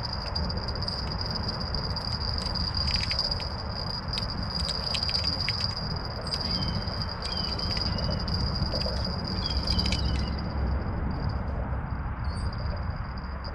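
Outdoor ambience: insects trilling in a steady high-pitched drone over a low rumble, with a few faint clicks and short chirps; the trill weakens near the end.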